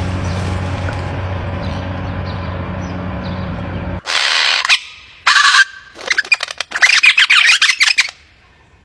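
A steady low hum with faint chirps, then from about four seconds in loud bird calls in quick, irregular bursts that break off shortly before the end.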